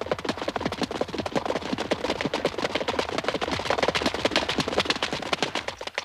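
Hoofbeats of horses galloping: a fast, dense run of thudding knocks that cuts off suddenly near the end.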